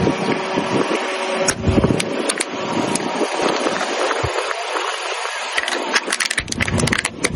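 A car rolling slowly, engine running low, as its tire crushes objects. The tire makes scattered cracks early on and a quick run of crackling crunches near the end.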